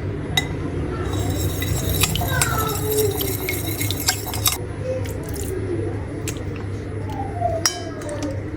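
Glass sauce bottles and utensils clinking and clicking as a steak is seasoned, with a cluster of ringing clinks from about one to four and a half seconds in, over a steady low hum.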